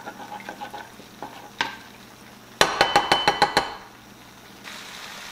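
Metal spoon clinking against a saucepan of gravy, with a few light knocks and then a quick run of about eight sharp, slightly ringing clinks in about a second. A faint sizzle of the gravy heating on the stove starts near the end.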